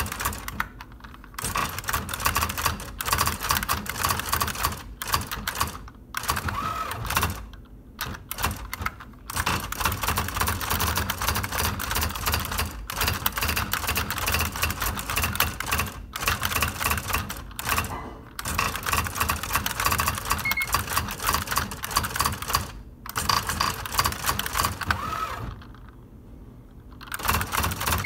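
IBM Wheelwriter 10 Series II electronic typewriter typing: a fast, dense clatter of its daisy printwheel striking character after character as the keys are pressed, broken by a few short pauses, the longest near the end.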